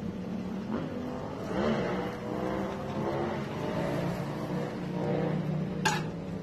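A motor engine running steadily, rising and falling in pitch, with one short metallic clink near the end as the tin's loose wire handle swings.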